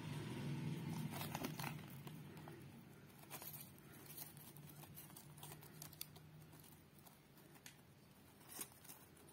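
Faint crinkling of the paper liner and cardboard box as food is handled and picked out, with a few scattered light clicks.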